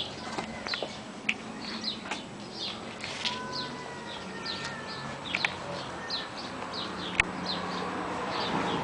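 Small birds chirping over and over, short falling chirps a few times a second, with a sharp click about seven seconds in.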